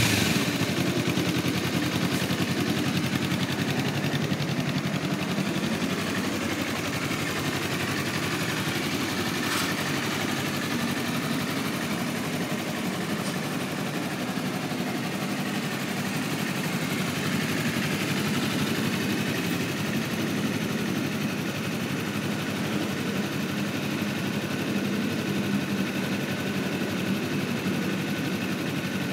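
A 2017 Honda CBR250RR's parallel-twin engine idling steadily, easing down from a rev at the very start.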